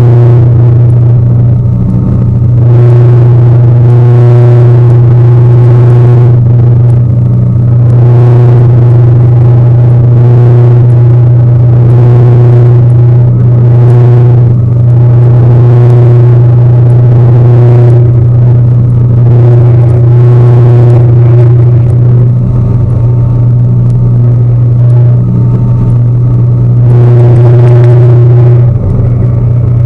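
Tour boat's engine running steadily, heard on board as a loud, constant low drone, with higher overtones that swell and fade about every two seconds.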